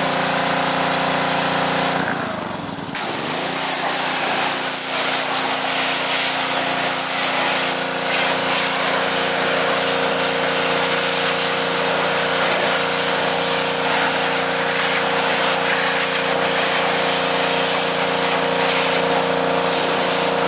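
Gas-engine pressure washer running steadily while its wand blasts a hissing jet of water onto a car's front bumper and paint. About two seconds in, the trigger is let go: the spray stops and the engine note dips for about a second before the spray resumes.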